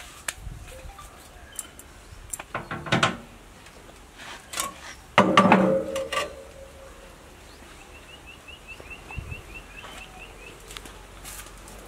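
A heavy steel stove-top plate being lifted off a metal firebox: a few knocks, then a loud clang about five seconds in that rings on briefly as metal. Near the end a bird gives a quick run of high chirps.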